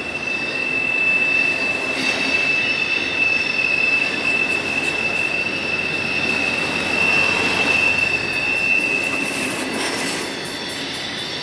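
Intermodal freight train rolling past, its steel wheels squealing in one steady high tone over the rumble of the cars. The squeal stops about ten seconds in, leaving only the rolling noise.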